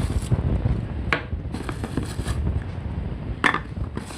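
Rustling and knocking as the small plastic parts and packaging of a portable vacuum cleaner are handled, with a few sharp clicks, over a steady low rumble.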